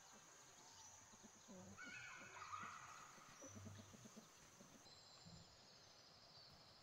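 Near silence: faint countryside ambience, with a distant animal call about two seconds in and a thin high steady tone in the background.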